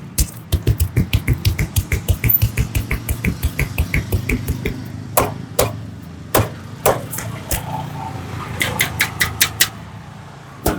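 Rapid percussive hand strikes of an Indian head massage, chopping and tapping blows about six a second for the first few seconds. These are followed by slower single slaps and a short quick run of sharper claps near the end.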